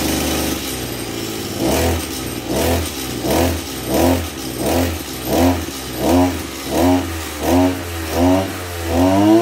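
Kubota DB262 26cc two-stroke brush cutter engine running with its blade spinning. It runs steadily at first, then the throttle is blipped over and over, about one rev every 0.7 s, each a quick rise and fall in pitch. The engine picks up quickly, a sign of a responsive throttle.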